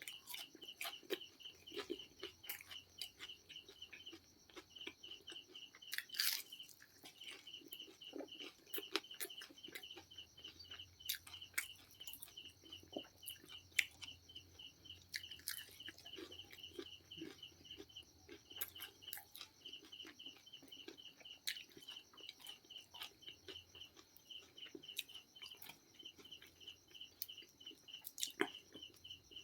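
Chewing and crunching of fried chicken, with scattered crisp bites and mouth clicks. Behind it runs a fast, steady train of high chirps that breaks off briefly now and then.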